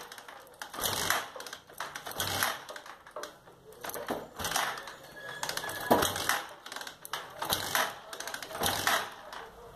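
Sundown Max 125's single-cylinder four-stroke engine being kicked over repeatedly with the kick-starter, about seven strokes, turning over without firing.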